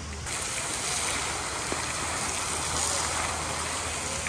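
Fountain jets spraying and splashing into their basin: a steady, even hiss of falling water that starts abruptly a moment in.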